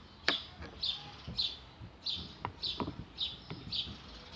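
A bird chirping over and over, short high chirps about twice a second, with a few sharp clicks and knocks among them.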